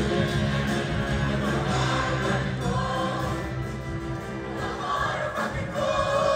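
High school show choir singing in harmony over musical accompaniment, holding long notes.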